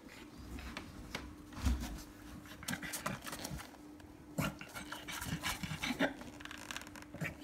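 A black pug panting in short, irregular bursts while whelping, with rustling and knocks as gloved hands handle her on the bedding.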